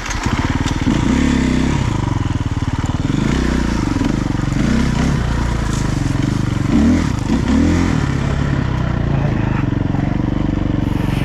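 Dirt bike engine running under load, its revs rising and falling again and again as the throttle is worked.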